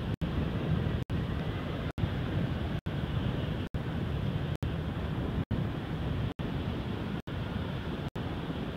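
Wind blowing across the microphone: a steady low rush with no pitch to it. The sound cuts out for an instant about once a second.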